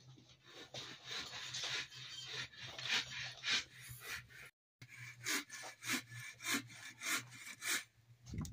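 Irregular rustling and scraping from someone moving about inside a canvas wall tent, over a faint steady low hum. The sound drops out for a moment about halfway through.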